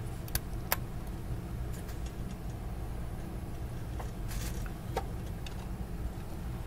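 Steady low background rumble, with a few light clicks and taps as hands handle the opened metal chassis of an HP3478A bench multimeter: two near the start and two more about four and five seconds in.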